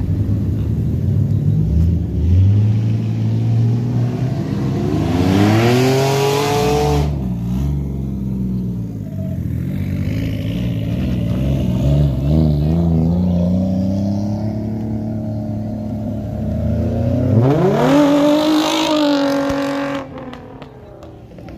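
Nissan S14's engine revving hard twice, about five seconds in and again near the end. Each time it climbs quickly to a high, held note before letting off, with uneven lower revving in between.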